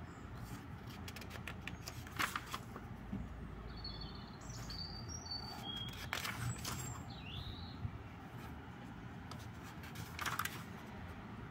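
Thin notebook pages being turned by hand, a paper rustle and flick about three times. A few short high chirps, like a bird, come in the middle.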